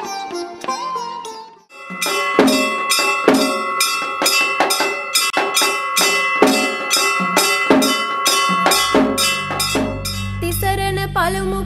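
Devotional music: a melodic instrumental passage breaks off briefly, then a steady percussion beat plays under sustained tones. A low drone comes in near the end, and a voice begins singing just before the end.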